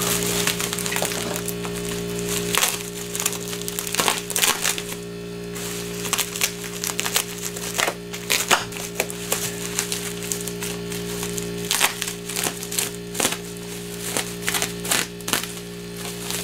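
Plastic bubble wrap crinkling and crackling as it is handled and pulled off a chainsaw power head, with irregular sharp cracks. A steady low hum runs underneath.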